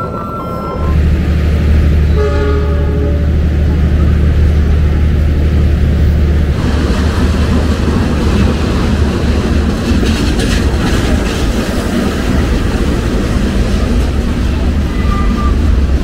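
Diesel-hauled passenger train running close by: a loud, deep engine rumble for the first six seconds or so, then a steady rush of rolling wheels on rail.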